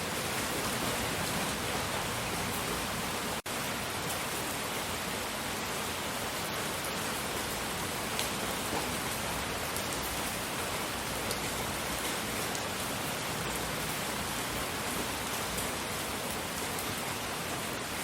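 A steady, even rushing hiss of relaxation noise, with no rhythm or tone in it. It cuts out for an instant about three and a half seconds in.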